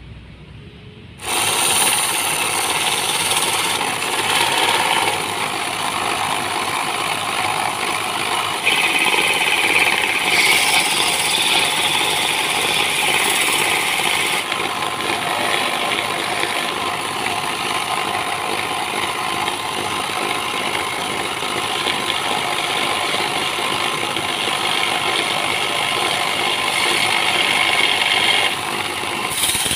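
Electric belt sander starting up about a second in, then running steadily while a flattened steel nail is ground against the abrasive belt, the grinding hiss growing brighter and harsher in the middle as the metal is pressed harder.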